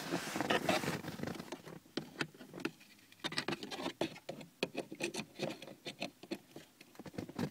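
Fumbling with a plastic ELM327 Wi-Fi OBD-II adapter while fitting it into the car's OBD-II port under the dashboard: rustling for about the first second, then a run of irregular small clicks and knocks.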